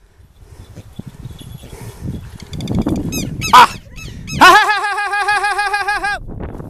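Southern lapwing giving harsh, rapidly repeated alarm calls while a falcon chases it. Fainter calls come first, then a loud sharp cry about halfway in and a loud bout of fast repeated notes near the end.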